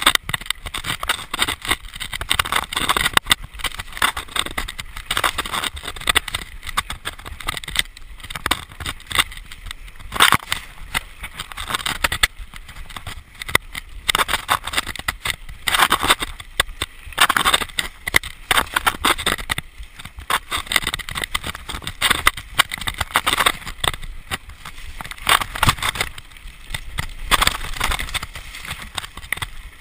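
Mountain bike descending a rough dirt and stone singletrack: tyres rolling over the trail, with frequent irregular clatters and knocks as the bike hits bumps and rocks.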